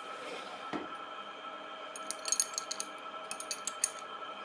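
Manual metal lathe running with a steady whine from the spindle and gearing. A single knock comes under a second in, then a run of light metallic clinks from about two seconds on.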